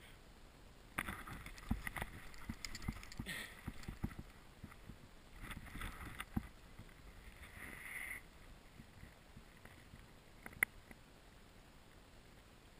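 Irregular rustling with soft knocks and thumps for the first several seconds, like a player moving through brush with gear and the camera knocking about, then quieter, with one sharp click about ten and a half seconds in.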